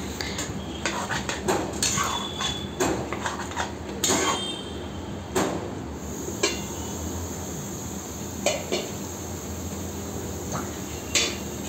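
Steel ladle clinking and scraping against a kadai as chicken curry is stirred, with a run of knocks over the first six seconds. Later come a few single knocks as a steel lid is handled over the pan.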